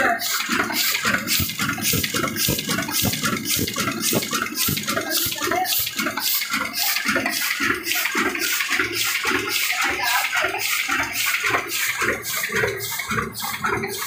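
Heidelberg GTO 46 single-colour offset printing press running at speed, a continuous mechanical clatter with a fast, even rhythm.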